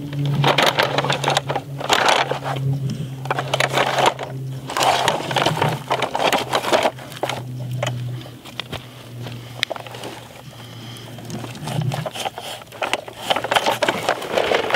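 Tonka toy front loader's bucket scraping and crunching through dirt and gravel in repeated bursts, with a steady low hum in the background that comes and goes.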